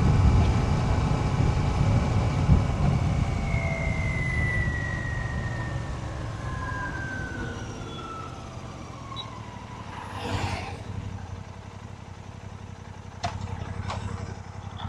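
Royal Enfield Shotgun 650's parallel-twin engine and exhaust while riding, the engine note falling and getting steadily quieter over the first half. A brief whoosh about ten seconds in and a few short clicks near the end.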